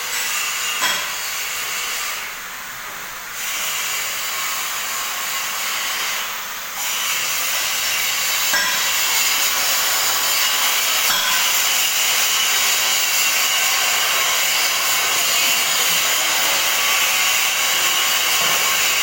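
A power tool in a metal-fabrication workshop, running under load with a steady hissing cutting noise. It drops off briefly twice in the first seven seconds, then runs on steadily and a little louder.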